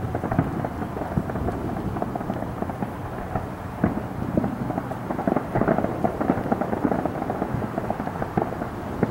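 Fireworks going off: a dense, continuous run of pops and crackles, many small bangs in quick succession, thickest about four to six seconds in.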